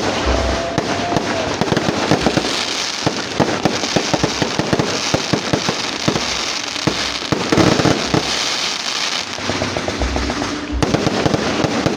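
Fireworks going off in a rapid run of cracks and bangs, the crackling dense and continuous, with a brief break about eleven seconds in.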